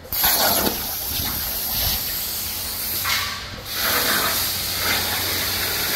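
Hypertherm Powermax plasma cutter on a CNC table cutting steel sheet: a steady, loud hiss of the plasma arc and air. The hiss cuts out briefly about three and a half seconds in and starts again.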